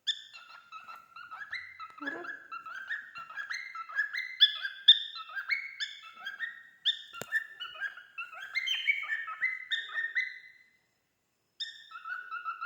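Male cockatiel singing: a long run of quick whistled, chirpy notes jumping up and down in pitch, breaking off for about a second near the end before starting again. A single sharp click about halfway through.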